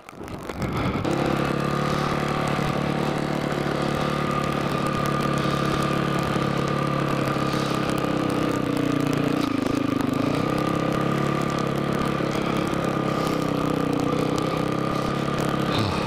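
Dirt bike engine running at low, fairly steady revs while the bike is ridden along a dirt trail. The engine note dips briefly about ten seconds in, then picks back up.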